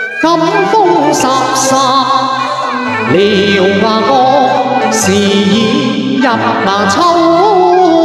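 Male voice singing a Cantonese opera aria (yuequ) into a microphone, in a gliding, ornamented melodic line over instrumental accompaniment.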